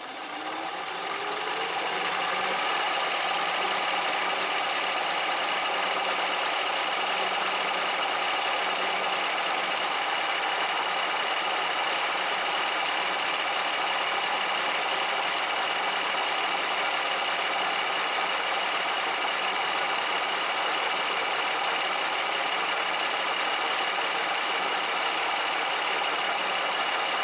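Bridgeport milling machine starting up, its motor whine rising over the first two seconds, then running steadily as the cutter mills the weld build-up off the welded-up jaws of a Lovejoy jaw-coupling hub.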